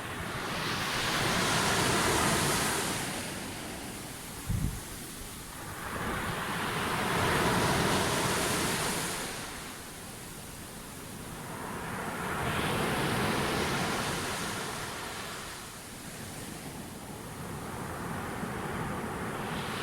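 Sea waves breaking on a beach, the surf swelling and fading in slow surges about every five to six seconds, with a brief low thump about four and a half seconds in.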